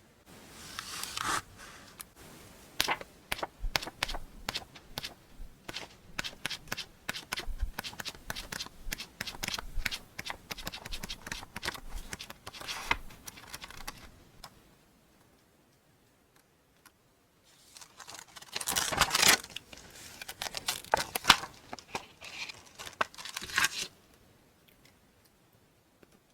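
Stationery packaging being unwrapped by hand: many quick crinkles, taps and rustles for about fourteen seconds, a pause, then a tearing rip followed by more crinkling.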